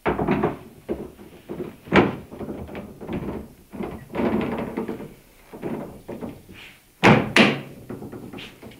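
Clunks and knocks of a car door and bodywork being handled, with a sharp knock about two seconds in and two loud thuds close together around seven seconds in.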